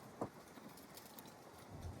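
A single light metallic knock about a quarter second in, from a battery cable end being set on the battery post for a test fit; otherwise faint handling and room sound.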